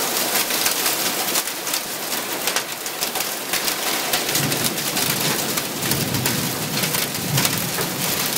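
Hail and heavy rain pelting a tin roof and pavement: a dense, steady hiss peppered with many small sharp hits.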